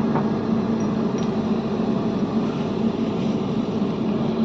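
A heavy machine's engine running steadily with a constant low hum, with a few faint metallic clinks in the first second or so.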